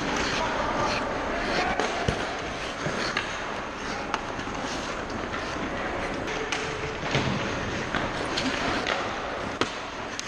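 Ice hockey play heard from inside the goal: skate blades scraping and hissing on the ice, with sharp knocks of sticks and puck scattered throughout and indistinct players' shouts.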